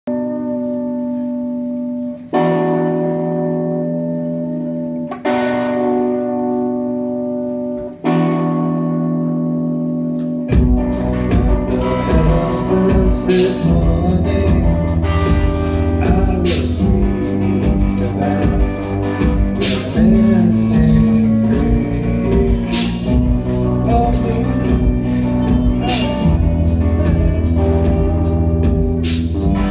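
Live dream-pop music on electric guitar: three sustained chords struck about three seconds apart, each left ringing, then about ten seconds in a steady drum beat and fuller backing come in under the guitar.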